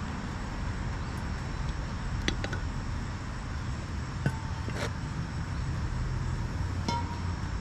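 Handheld gas brazing torch burning with a steady rushing flame, with a few light metallic clicks and ticks about two, four and seven seconds in.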